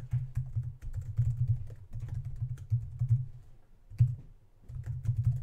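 Typing on a computer keyboard in quick runs of keystrokes, with short pauses about two seconds in and again just after four seconds.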